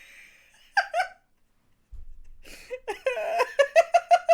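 A woman breaking into hard laughter from about three seconds in, in quick repeated bursts of about five a second.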